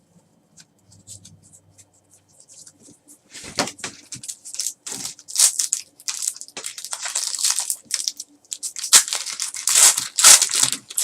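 Trading card pack wrappers crinkling and tearing as packs are ripped open, in irregular bursts starting about three and a half seconds in.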